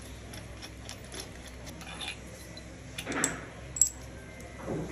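Small metallic clicks and clinks of steel engine parts being handled at the crankshaft nose as a timing sprocket is fitted. There is a short scrape about three seconds in and a sharp metal click just after it.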